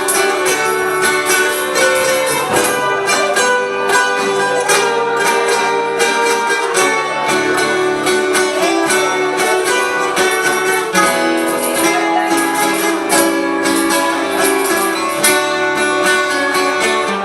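Instrumental break in a Brazilian country-style song: acoustic plucked-string instruments play a steady run of notes between sung verses, with no voice.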